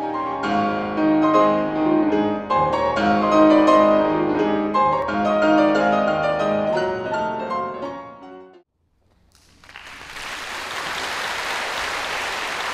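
Solo piano music, fading and stopping about eight and a half seconds in. After a short gap an audience starts applauding, building quickly to steady applause.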